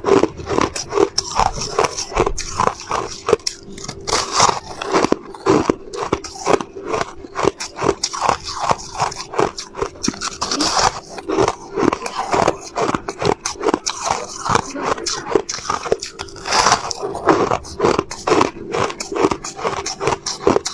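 Close-up crunching of soft white ice being bitten, a dense, irregular run of crisp crunches, several a second.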